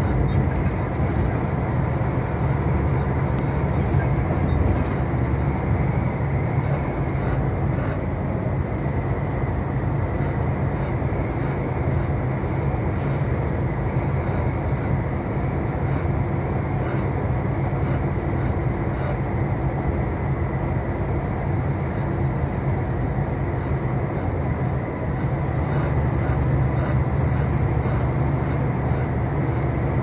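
Steady drone of a semi-truck cab cruising at highway speed: engine and tyre noise on concrete pavement, even throughout.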